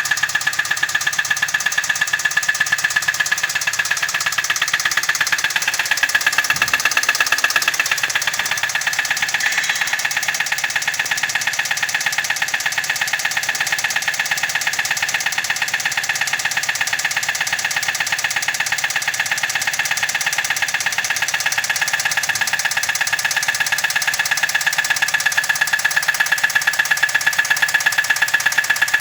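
Car engine idling with a rapid, even knocking that runs steadily without change.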